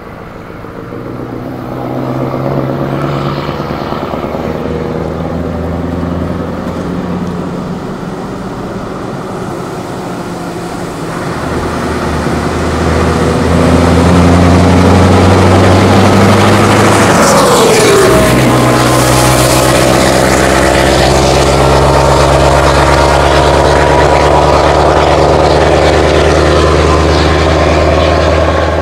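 Loud clattering engine of a heavy vehicle approaching and passing. Its pitch drops as it goes by about 18 seconds in, then it stays loud and steady.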